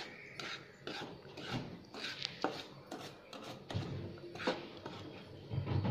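Wooden spatula scraping and pushing dry-roasted semolina around a nonstick pan: faint, irregular scrapes with a few light taps.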